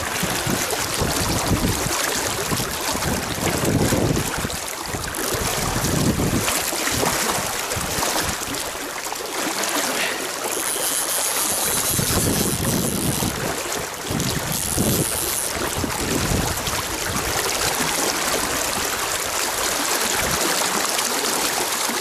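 Fast-flowing river water rushing steadily, with gusts of wind buffeting the microphone every few seconds.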